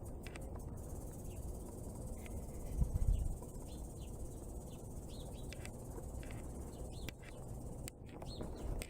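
Outdoor yard ambience: a steady low rumbling noise with faint, irregular high chirps scattered through it, and a brief low bump about three seconds in.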